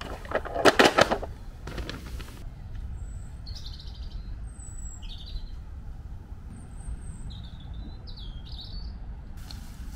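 Small birds chirping and whistling on and off in short high calls, over a steady low rumble. A few loud clattering knocks come in the first second, as a folding plastic hand truck is set down.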